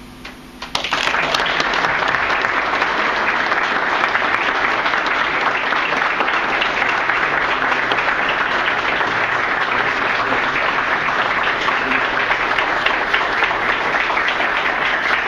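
Audience applauding, breaking out suddenly about a second in and keeping up a steady clapping.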